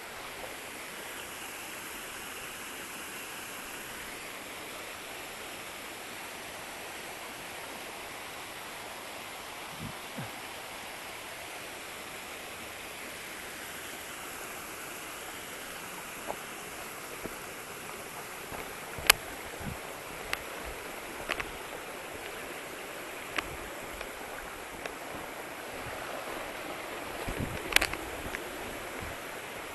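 Waterfall: a steady rush of falling water. Scattered sharp clicks and knocks sound over it in the second half, the loudest two about two-thirds of the way in and near the end.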